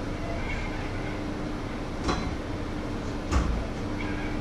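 Cookware knocking at a stove, twice: once about two seconds in and louder a little over a second later, over a steady low hum and hiss.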